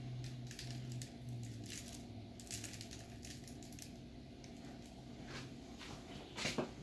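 Quiet handling sounds of breaded grit cakes being set into a wire fryer basket: soft rustles and a few light knocks, with a louder knock near the end. A low hum fades out over the first two seconds.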